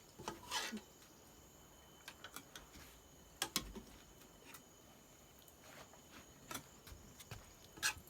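Quiet rural ambience: a steady high insect drone, like crickets, under a scattering of light clicks and knocks.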